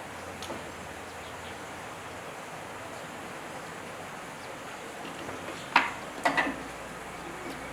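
A few sharp clicks and knocks of hand tools and metal parts as a burst generator is taken apart, over a faint steady hiss: one faint click about half a second in, then two louder ones close together near the end.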